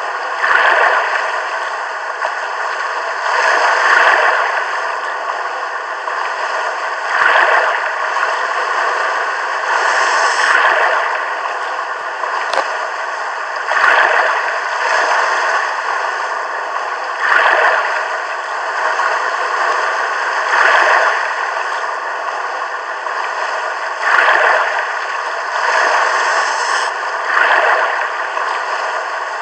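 Looped sea-wave sound effect from an augmented-reality app's animated sailing ship: a steady rush of water that swells about every three and a half seconds.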